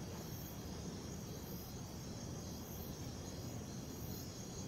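Faint crickets chirping steadily, a high pulsing trill over a low background hiss.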